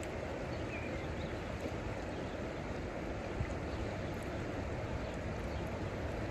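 Steady rushing outdoor background noise, even and unbroken, with no distinct events.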